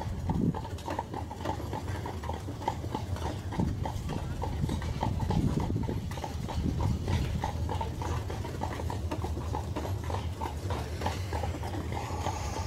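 Horse's hooves clip-clopping at a steady walk on a paved street, about three strikes a second, as it pulls a carriage, over a steady low rumble of the carriage rolling.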